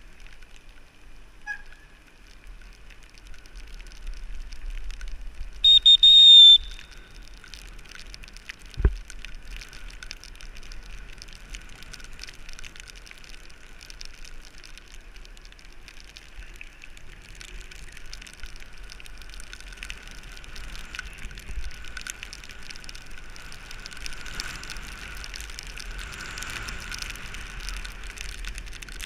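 Bicycle riding on wet asphalt in rain: a steady hiss of tyres and rain on the camera. About six seconds in a loud, high ringing sounds for under a second, and a few seconds later comes a single thump.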